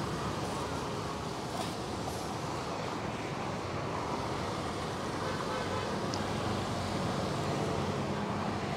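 Steady roadside traffic noise, an even rumble and hiss of passing vehicles.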